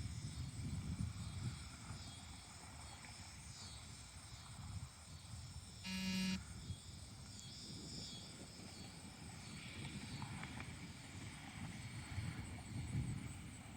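A beep-test signal: one short electronic beep about six seconds in, marking the end of a timed shuttle. A low rumbling noise runs underneath.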